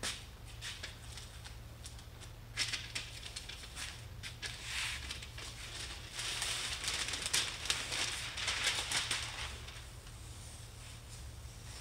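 Masking paper and tape being peeled off a painted pinball cabinet panel, the paper crackling and crinkling. It builds a few seconds in, is loudest over the middle stretch, then eases off.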